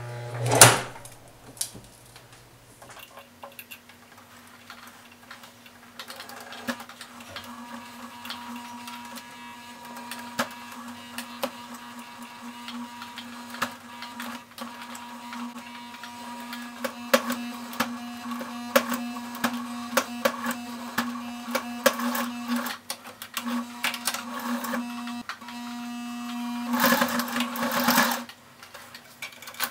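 Singer Facilita Pro 4423 electric sewing machine stitching through a stack of paper sheets for notebook binding. There is a loud click about a second in, then scattered clicks over a faint steady hum, and a louder run of stitching of about a second and a half near the end.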